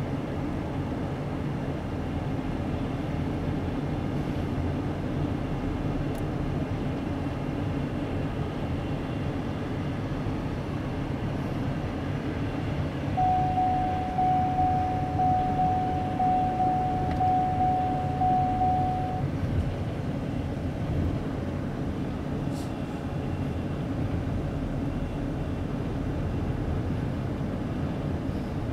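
Steady road and engine noise inside a moving car. About halfway through, an electronic beep pulses evenly, a little under twice a second, for about six seconds.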